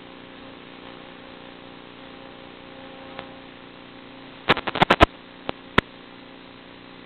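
Steady electrical hum and hiss. About four and a half seconds in comes a quick run of about half a dozen sharp clicks, then two single clicks soon after.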